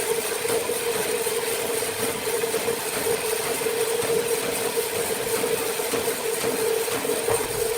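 Sawmill machinery running steadily: a constant mid-pitched hum with a steady high whine over it, never stopping or changing.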